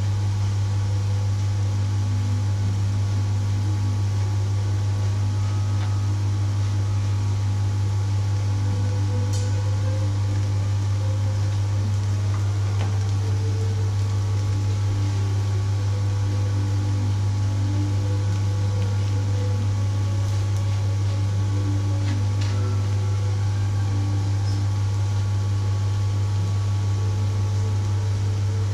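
A steady low hum from a running kitchen appliance motor, over a faint even hiss, with a few faint clicks.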